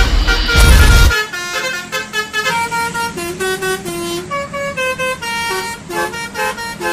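Loud low rumble with a horn blast that cuts off about a second in, then a multi-tone 'telolet' bus horn plays a quick tune of short tooting notes.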